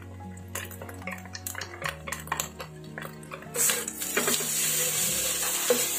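A spatula and a small bowl clicking and scraping against a nonstick wok, then, about three and a half seconds in, a steady sizzle starts as instant noodles with shrimp and egg are stir-fried.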